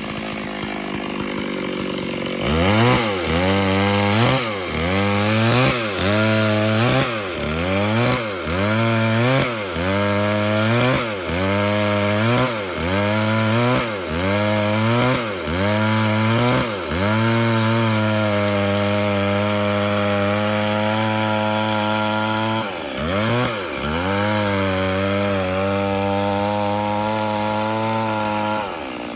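Two-stroke chainsaw cutting wood: after a couple of seconds at idle it revs up, and its pitch sags and recovers about once a second under the cut. It then holds a steady high rev with one short dip near the end.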